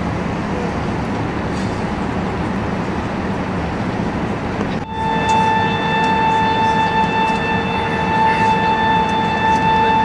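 Steady rumble of Airbus A380-800 cabin noise heard from inside the passenger cabin in flight. About halfway through, after a brief dip, a steady high whine joins the rumble and holds.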